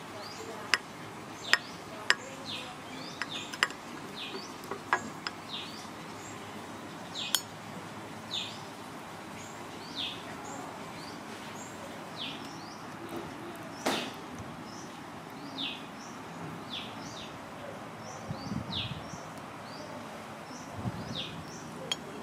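Metal spoon and fork clinking against a ceramic plate while scooping rice and fish, sharpest in the first few seconds and once more midway. A bird repeats a short falling chirp every second or so in the background.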